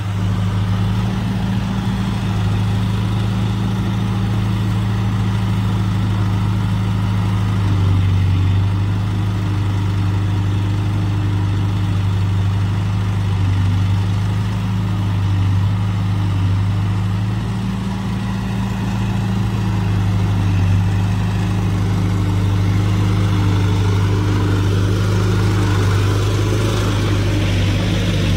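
Diesel engines of a Case 770EX backhoe loader and a John Deere tractor running close by, a steady deep engine hum with small shifts in pitch now and then as the backhoe works its arm to load soil into the trolley.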